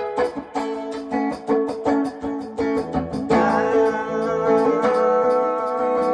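Guitar strummed in a rock and rhythm-and-blues song, no singing: chords struck in quick strokes, then held ringing from about three seconds in.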